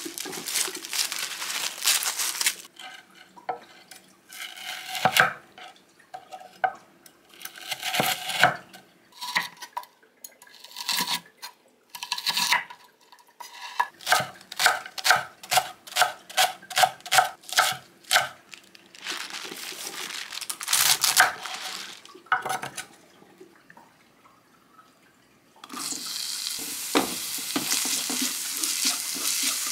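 Paper towel rustling, then a kitchen knife chopping on a wooden cutting board in a quick, even run of strokes, about three a second. About 26 seconds in, chopped leek and minced garlic start sizzling in a frying pan while a spatula stirs them.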